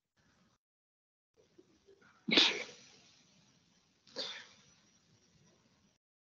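A person sneezing twice, about two seconds apart, the first sneeze louder.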